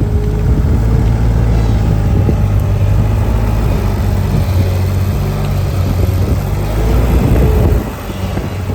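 An engine running steadily with a deep, loud hum; it drops in level shortly before the end.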